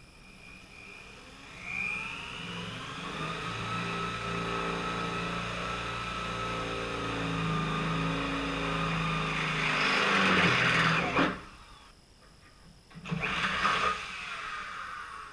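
Electric drill with an 11/32-inch bit drilling out a hole in the sheet-metal rocker panel. The motor winds up about two seconds in and runs steadily, grows louder and harsher around ten seconds in as the bit cuts through the metal, and stops sharply about a second later. A short burst of noise follows about two seconds after that.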